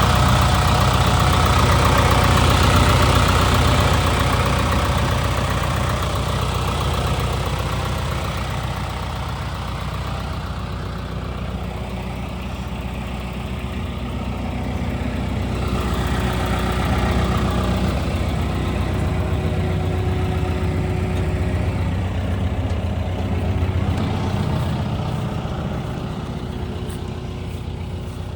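Hitachi ZX170W-5B wheeled excavator's diesel engine running steadily, its level rising and falling in slow swells.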